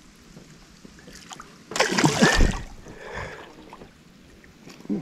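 A big bowfin thrashing at the surface beside the boat as it is netted: one loud splash about two seconds in and a smaller one about a second later.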